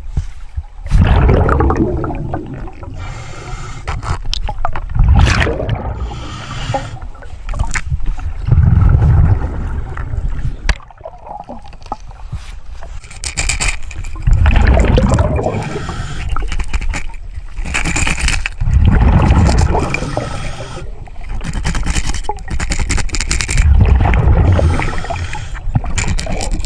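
Scuba diver breathing through a regulator underwater: a hiss on each breath in, then a loud rumble of exhaled bubbles, repeating about every four to five seconds.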